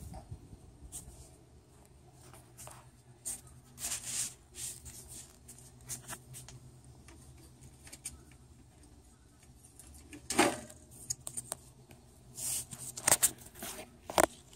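Handling noise from the phone being moved about in the hand: fingers rubbing and tapping near the microphone, a scatter of small clicks and short scrapes. The loudest come about ten seconds in and in a cluster near the end.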